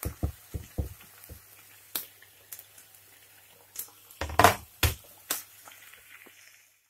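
Diced turkey being scraped off a plastic cutting board into a frying pan, with a quick run of soft knocks. A few louder knocks follow about four to five seconds in.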